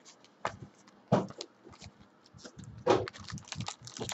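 Trading cards and rigid plastic top loaders being handled and set down on a table: a few sharp clicks and knocks, the loudest about three seconds in, then a run of small quick clicks.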